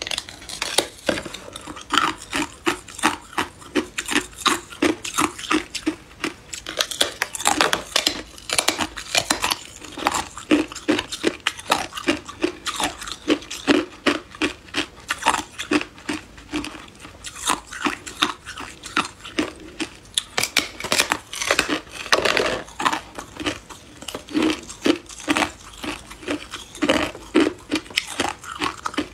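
Teeth biting into a large clear block of hard ice held at the mouth: a steady run of sharp cracks and crunches, about two or three a second.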